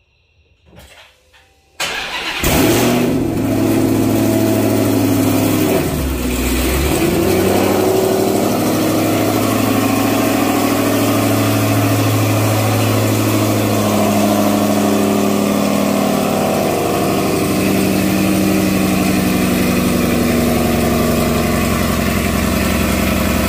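Dodge Challenger SRT Hellcat Redeye's supercharged 6.2-litre Hemi V8, breathing through newly fitted American Racing headers, starts about two seconds in with a loud flare of revs. It then settles into a steady, loud idle.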